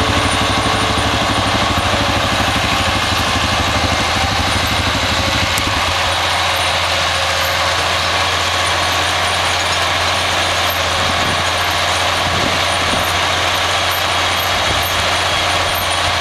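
Farm tractor running steadily under load during hay baling: a loud, even engine and machinery noise with a constant low hum.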